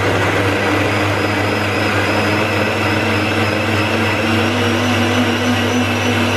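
Byzoo vacuum blender running on its auto-blend program without vacuum, its motor and blades puréeing tomatoes, peppers and herbs into a thick liquid: a loud, steady whir with a faint high whine that climbs slightly.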